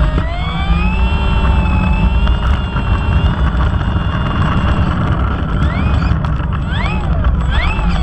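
Radio-controlled Icon A5 model plane's motor and propeller whining as it taxis, the pitch gliding up and down with the throttle and sweeping up and back down a few times near the end, over a steady low rumble.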